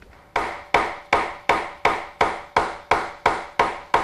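Hammer blows in a steady rhythm, about eleven strikes a little under three a second, each with a short ringing decay.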